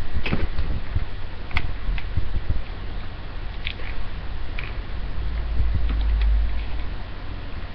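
Corded hair styling iron handled and worked through hair: scattered light clicks and ticks, over a low rumble that swells about five seconds in.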